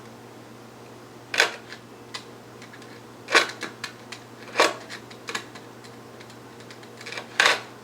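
Sheet of skateboard grip tape being handled, giving five short, sharp scratchy crackles spread a second or two apart over a steady low hum.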